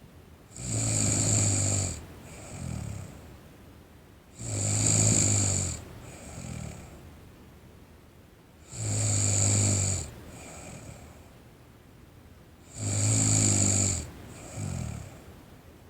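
A teenage girl snoring in her sleep: a loud snore about every four seconds, each followed by a shorter, softer one, four times over.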